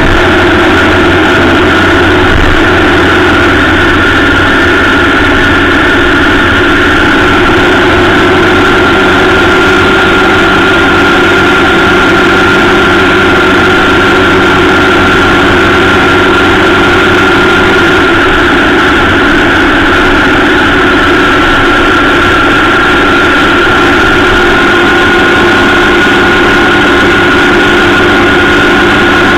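Honda Gold Wing motorcycle cruising at a steady speed, its engine running at an even note.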